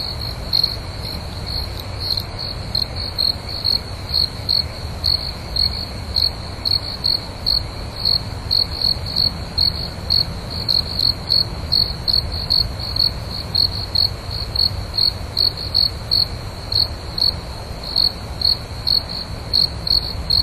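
Cricket chirping, short high chirps repeating evenly about two to three times a second, over a faint low steady rumble.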